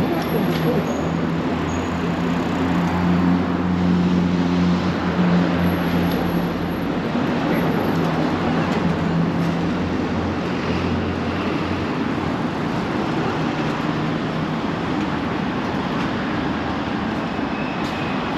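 City street traffic noise, with a heavy vehicle's engine hum standing out for the first ten seconds or so before fading into the general roar.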